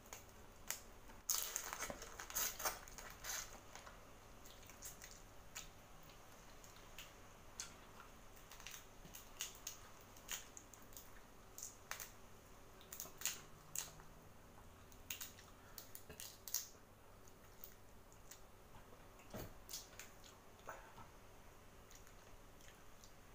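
Boiled shrimp shell cracking and crackling as it is peeled apart by hand, in scattered sharp snaps that are busiest a second or two in and then come in ones and twos.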